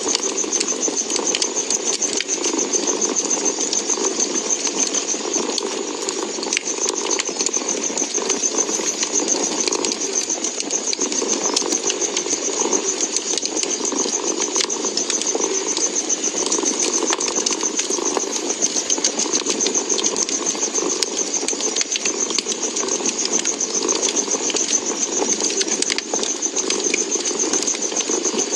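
A cat purring steadily while a wood fire crackles with many small pops and snaps.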